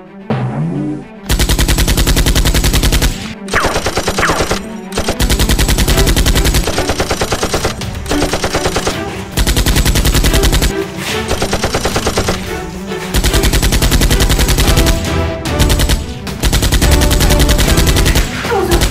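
Rapid automatic gunfire, loud, in a string of long bursts with short breaks between them. In a Nerf blaster fight this is a dubbed machine-gun sound effect, not the blasters themselves.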